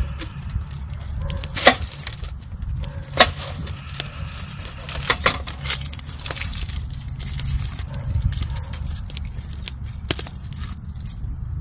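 Log campfire crackling, with a handful of sharp pops spread through, over a steady low rumble. Small handling sounds come from a knife cutting a foil-wrapped potato and an onion being peeled.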